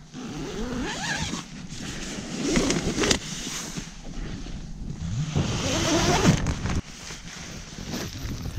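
Tent door zip being unzipped from inside in a few long pulls, each a rising zipping sweep.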